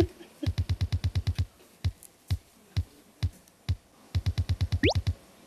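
Background music: an electronic drum-machine beat with regular kick thumps and ticks, broken by two quick drum rolls, and a quick rising tone near the end.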